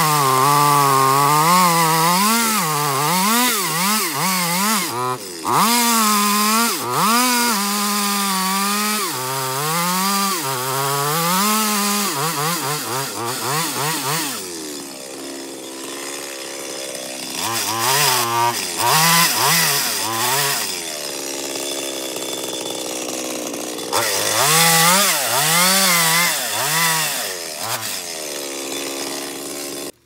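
Petrol chainsaw cutting into a tree trunk near its base. The engine note wavers up and down as the chain bites into the wood, and eases off twice to a lower, steadier run before picking back up.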